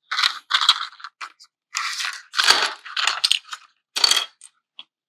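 Plastic packaging and accessories being handled: irregular crinkling and rustling in short bursts.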